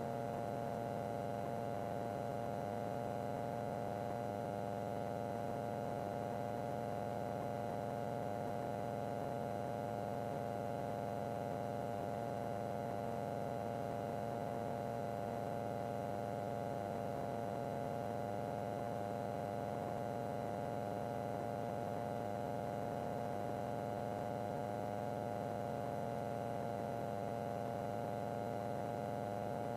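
Steady in-flight drone of a Van's RV homebuilt light airplane's engine and propeller heard in the cockpit: a few unchanging tones over a low rumble, with no change in power.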